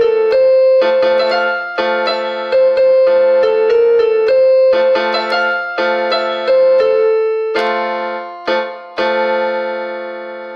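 Instrumental ending of a song on a keyboard: a short run of struck notes over a held low note, closing on a final chord about nine seconds in that rings out and fades.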